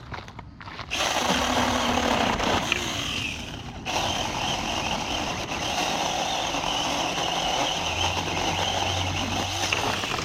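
Saker mini cordless electric chainsaw starting about a second in and running steadily as it cuts through wood, with a short dip just before four seconds in.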